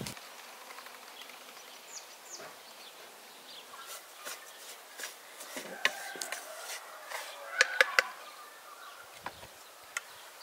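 Hens clucking and birds calling over a quiet background, with a few sharp clicks of a wooden spoon against a metal pan as it is stirred, the loudest a quick pair about eight seconds in.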